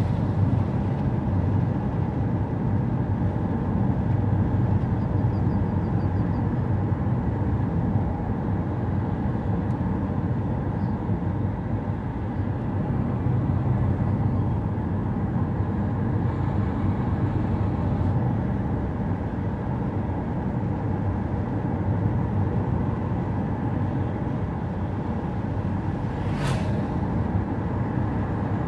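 A car driving along: steady low engine and road rumble, with one short click near the end.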